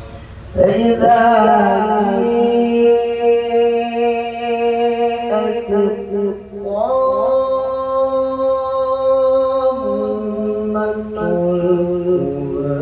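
A male qari reciting the Qur'an in the melodic tilawah style into a microphone: long, held, ornamented notes in two phrases, the voice coming in about half a second in and breaking briefly for breath around the middle.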